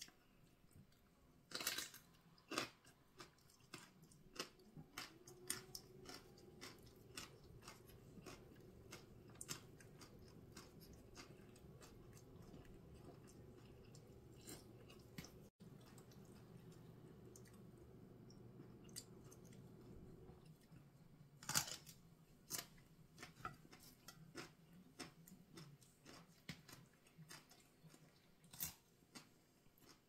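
Faint chewing of a grilled pork salad with raw vegetables, with many small sharp clicks and crunches from the mouth and hands. A faint low hum sits under the middle part.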